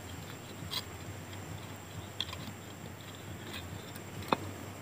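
A few faint, scattered clicks and taps of a hand working among loose coral rock while probing a crab hole, with one sharper click near the end.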